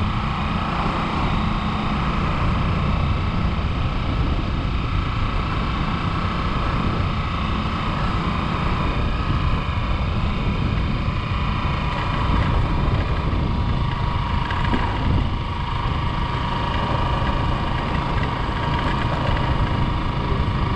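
Small motorcycle engine running at a steady cruise, with a constant low rumble and wind buffeting the microphone.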